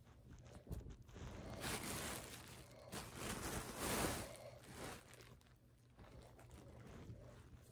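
Faint rustling of clothing being handled and unfolded, in two swells with the louder one about four seconds in, over a steady low hum.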